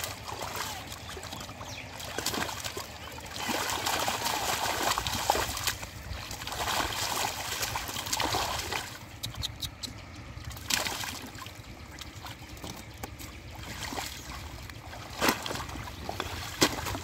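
Shallow muddy water splashing and sloshing in uneven bursts as bare hands grab at a thrashing catfish. Two sharp knocks near the end as the fish goes into a plastic crate.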